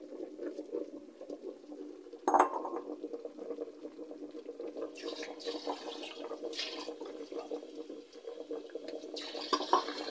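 A pot of vegetables and broth bubbling on the stove, with one sharp knock about two seconds in and a few short bursts of hissing splash later.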